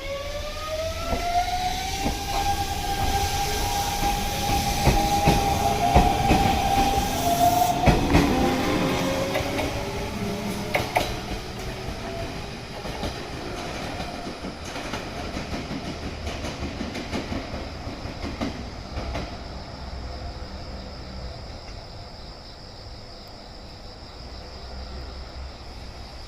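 Hanshin 5500-series electric train running, its motor whine rising in pitch in the first couple of seconds, holding steady, then dropping lower. The wheels click over rail joints through the middle, and the sound dies down over the second half as the train slows.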